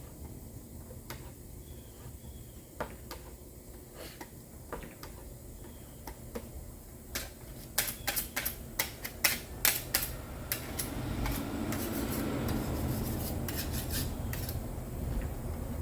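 Body filler being worked on a mixing board with a spreader. There are light taps at first and a quick run of sharp clicks and taps in the middle, then steady scraping and smearing over the last few seconds.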